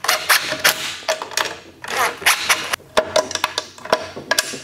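Cordless impact driver running in several short bursts, driving nuts down tight onto carriage bolts, with small metal clicks of the bracket being handled between bursts.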